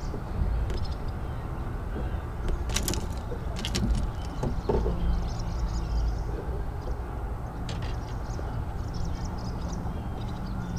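Steady low wind rumble on the microphone over open water. A few sharp splashes and knocks come about three and four seconds in and again near eight seconds, as a hooked largemouth bass is fought alongside the boat and lifted in by hand.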